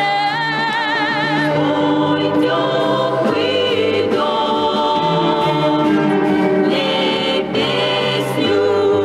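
Song recording with orchestral backing: a female singer holds a long note with wide vibrato for about the first second and a half, then sustained chords with a choir-like vocal sound carry on.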